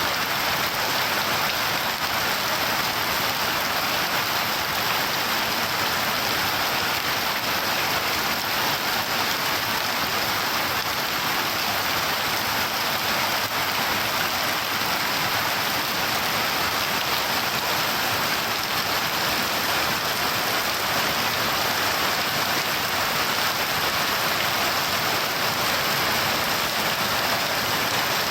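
Steady heavy rain falling, an even hiss of drops with no thunder.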